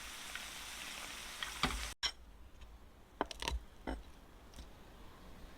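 Radish pieces deep-frying in oil, a steady sizzle that cuts off abruptly about two seconds in. A quieter stretch follows with a few sharp clicks and taps.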